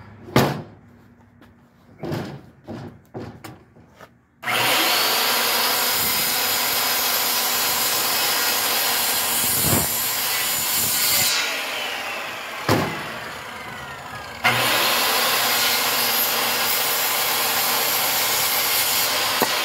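A few knocks as the timber and saw are set in place, then a handheld circular saw starts about four seconds in and cuts through a 4x4 timber. The cut eases for a few seconds about halfway through, then runs loud and steady again until near the end.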